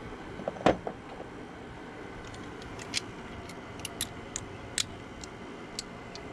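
Hand tools and metal parts clinking during work on a truck engine's thermostat housing: one loud clank about a second in, then scattered light clicks and taps, over a steady low hum.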